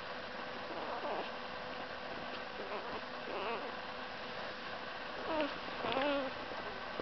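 Newborn Boxer puppy squeaking and whimpering: several short, thin cries that bend up and down in pitch, the loudest two near the end, over a steady hiss.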